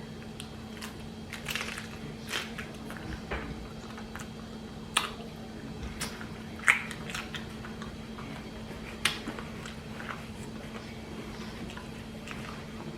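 Close-up chewing and mouth sounds of someone eating a chicken salad sandwich: scattered wet clicks and smacks every second or two, over a steady low hum.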